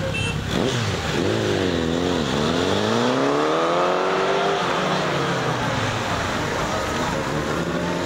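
Several police motorcycle engines pulling away together. The pitch dips twice, climbs as they accelerate to a peak about four seconds in, then eases off as they draw away.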